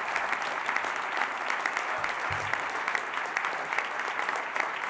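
Audience applauding steadily: dense clapping from a large room of people.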